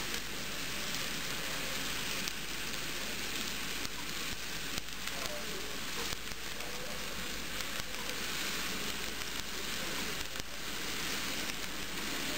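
Steady crackling rush of N scale model train cars rolling by on the track, their small metal wheels giving a continuous stream of fine clicks.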